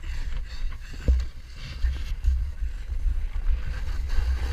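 Wind buffeting the microphone of a body-mounted action camera while a snowboarder gets up and rides off down the slope, with the board's hiss over the snow under it. A single thump about a second in.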